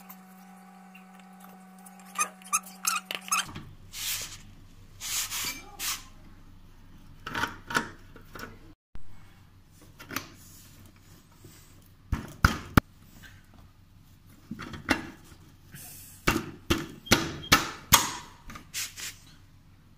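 Scattered metal clicks, scrapes and knocks as a steel front axle is worked through a scooter's front wheel hub and fork by hand, with sharp taps about twelve seconds in and a quick run of them near the end.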